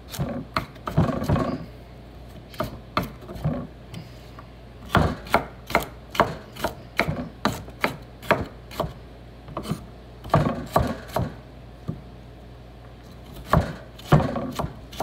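Knife chopping carrots on a wooden cutting board, in runs of quick, sharp strokes with short pauses between the runs.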